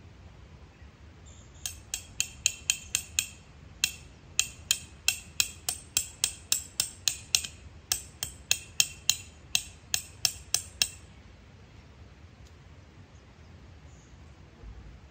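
A metal tent stake being hammered into the ground with a peg hammer: sharp ringing strikes at about three a second, in three runs with short pauses, stopping about eleven seconds in.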